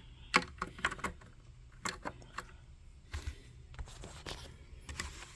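Light, irregular metallic clicks and clinks of small metal parts being handled: a drilled-out rivet and the filter-can socket pulled apart by hand.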